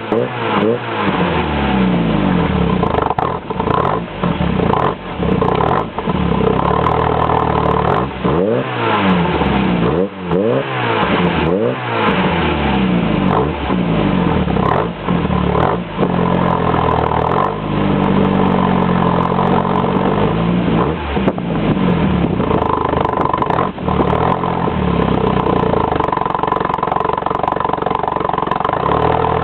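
1983 Volkswagen Golf Mk1 GL's engine through a Simons aftermarket exhaust, revved again and again from idle. There are several quick blips in the first dozen seconds, then one slower, longer rise and fall in the middle, before it settles to steadier running. The engine is cold.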